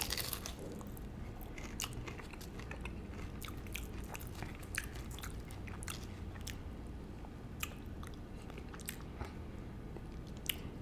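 Close-up mouth sounds of chewing a fried peach mango pie: a bite at the start, then soft, irregular crunches and wet mouth clicks.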